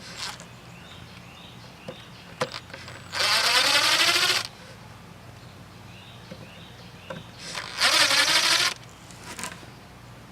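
Cordless drill/driver running in two short bursts, backing out screws from a cabinet door's hardware, with a few small clicks between.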